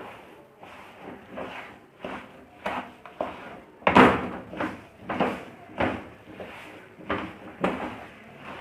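A spoon or spatula stirring and scraping a thick, sticky mix of roasted flaxseed, flour and jaggery syrup in a pan, in repeated strokes about every half second, the strongest about four seconds in.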